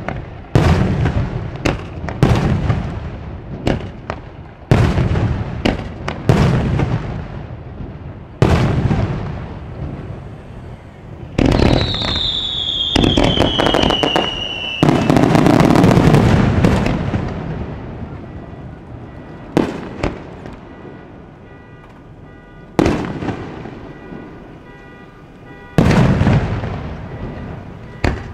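Fireworks display: aerial shells bursting one after another, each a sharp bang that dies away over a second or so, about one to two seconds apart. About eleven seconds in, a whistling firework falls in pitch for some three seconds over rapid crackling. A loud, dense volley follows, then fewer, spaced-out bangs.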